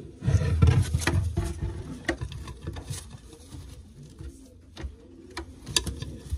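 Rustling and handling thumps in a racing pigeon loft, then a run of light clicks, taps and scratching, with faint pigeon cooing underneath.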